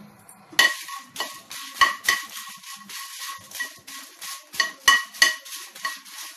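A spatula clinking and scraping against a pan while Byadagi dried red chillies are stirred and roasted, with repeated uneven clinks, about two a second, that make the pan ring briefly.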